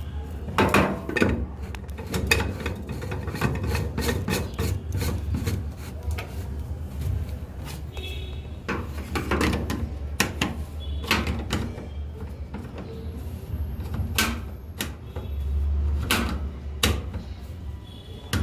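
Irregular clicks, knocks and scraping of parts and tools being handled during a washing machine repair, over a low steady hum.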